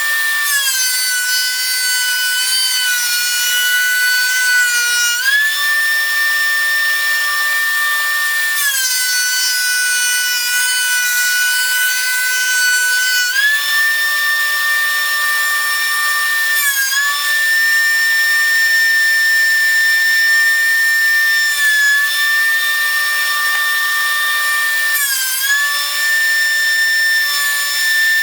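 DeWalt thickness planer running with a high-pitched motor whine. The pitch drops for about four seconds twice in the first half as oak boards feed through under load, and rises again between passes, with a few brief dips later.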